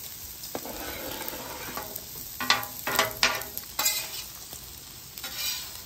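Food sizzling on a flat-top griddle while a metal spatula scrapes across the steel plate, turning tater tots and diced peppers. There is a cluster of sharp scrapes about halfway through and another near the end.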